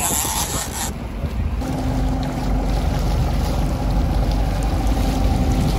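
Boat engine running steadily under wind and sea noise, with a steady hum coming in about one and a half seconds in. A short gust of wind hits the microphone in the first second.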